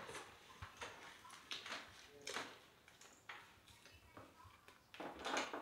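Quiet eating sounds: soft pav bread rolls being torn apart by hand and food being chewed, heard as a few short, scattered rustles, the loudest near the end.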